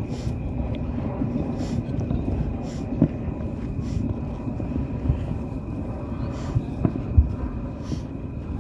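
Distant fireworks going off all over the city: a continuous rumble of far-off booms and crackle, with a few sharper bangs about 3 seconds in and again around 7 seconds.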